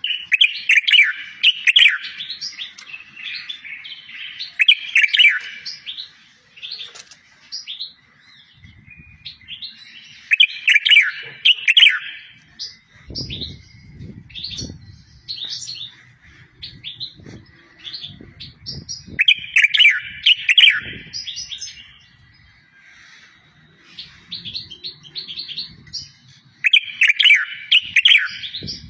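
A songbird, the bird called 'watwat' by Maghrebi bird keepers, singing loud phrases of fast trills and quick falling notes, repeated every several seconds, with scattered single chirps between them. A few faint low knocks come about halfway through.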